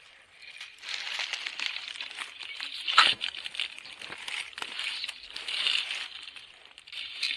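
Dry leaves and brush rustling and crunching in irregular bursts, with scattered clicks and one sharp crack about three seconds in.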